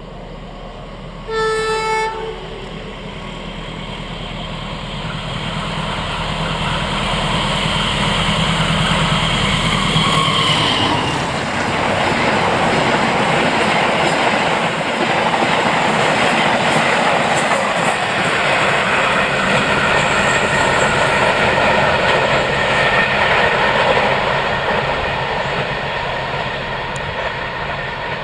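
A train passing: a short horn blast that drops in pitch at its end, then a diesel locomotive's engine growing louder as it approaches, its pitch falling as it passes about ten seconds in. The wheels then rumble and clatter over the rail joints as the coaches go by.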